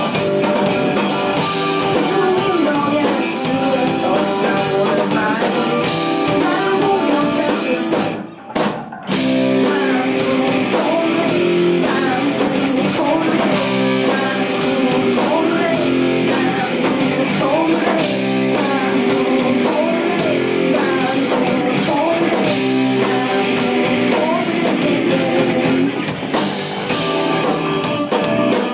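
Rock band playing live and loud: two electric guitars, a Fender electric bass and a Pearl drum kit, with a voice singing. About eight seconds in the whole band stops dead for under a second, then crashes back in.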